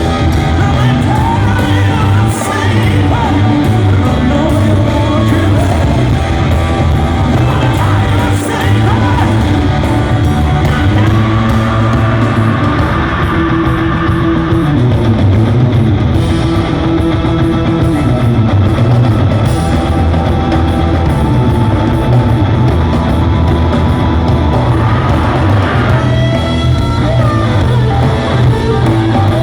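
Rock band playing live in concert: a male lead singer over electric guitar and a full band.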